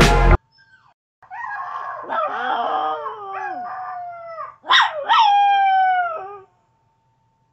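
Chihuahua howling. It starts about a second in with a wavering howl, gives a short sharp cry, then draws out a long howl that falls in pitch and stops about six seconds in.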